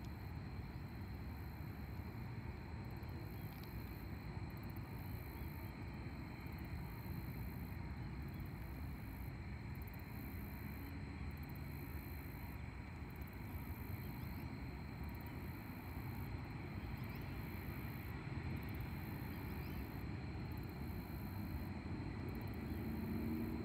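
Distant freight train rolling away, a low steady rumble.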